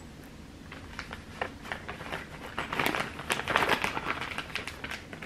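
Packaging being handled and crinkled by hand, a run of small clicks and rustles that is busiest about halfway through.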